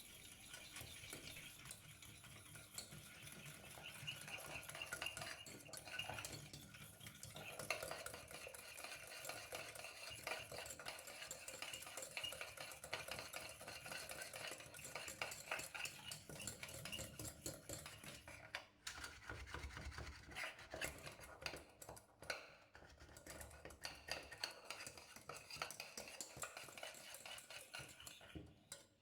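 Egg, sugar and vanilla being stirred briskly in a bowl with a kitchen utensil, to dissolve the sugar. It is a faint, fast run of light clicks and scrapes against the bowl, with a few short pauses in the second half.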